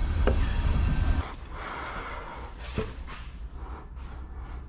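A cut piece of plywood handled and laid onto a plywood boat frame. A low rumble stops about a second in, then there are a few light wooden knocks and a brief scraping rub.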